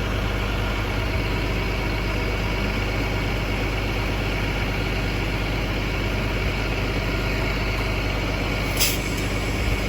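Transit bus engine running with a steady, even rumble of engine and road noise. About nine seconds in there is a brief sharp hiss of air.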